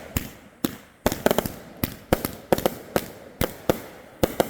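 Consumer fireworks going off: a string of about a dozen sharp bangs at uneven intervals, some coming in quick clusters of two or three.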